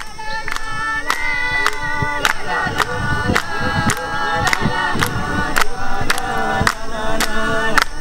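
A traditional Papua New Guinean group song: voices singing together in chorus over a steady percussive beat, about two beats a second.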